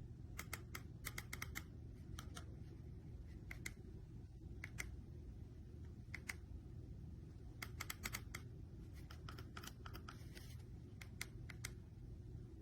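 Faint, irregular light clicks, a few at a time with gaps between, over a low steady hum.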